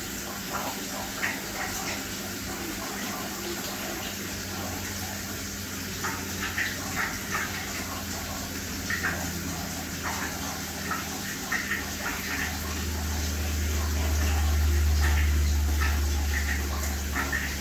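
Aquarium water running and trickling, with scattered small splashes and crackles over a steady pump hum. A deeper hum swells for a few seconds in the second half.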